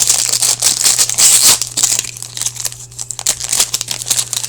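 Foil wrapper of a hockey card pack crinkling and tearing as it is opened, a dense run of crackles that is busiest in the first half and thins out later, over a steady low electrical hum.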